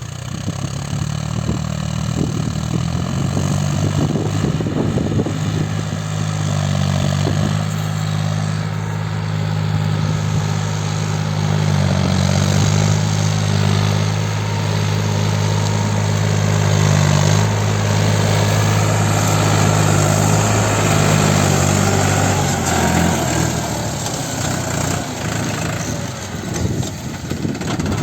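Tractor engine running steadily under load while pulling a reversible plough, with a clatter of mechanical noise; its steady note fades about 23 seconds in.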